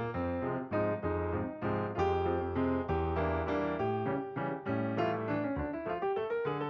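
Background music: an upbeat piano or electric-piano track with a bass line and a steady run of notes.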